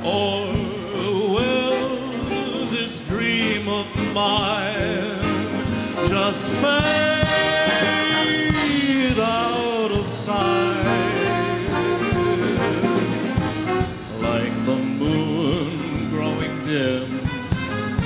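A male crooner sings with vibrato, backed by a big band with saxophones and brass.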